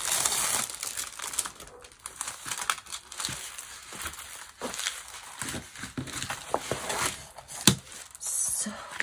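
Plastic packaging and a folded diamond-painting canvas with its clear protective film crinkling and rustling as they are handled and opened out, with many small crackles and one sharp, louder crack near the end.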